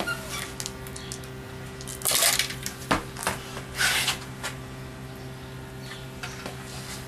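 Mentos candies dropped into a metal pot of diet soda and ramen: a few short rustles and clicks, the main ones about two and four seconds in, over a steady low hum.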